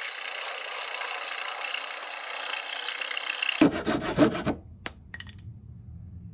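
Coping saw cutting the profile of a wooden baseboard at an angle, a steady rasping for about three and a half seconds, then a rougher, louder stretch with a few sharp knocks before it dies down to a faint low hum.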